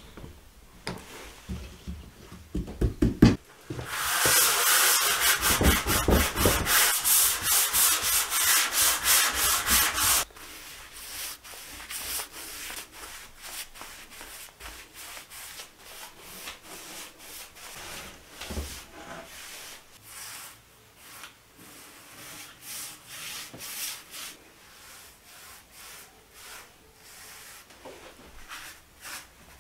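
Rhythmic rubbing strokes on wood. About four seconds in, a loud stretch of rapid scratchy strokes begins and stops abruptly near ten seconds. After that, quieter, softer strokes of a paintbrush follow as finish is brushed onto a wooden tabletop and table legs.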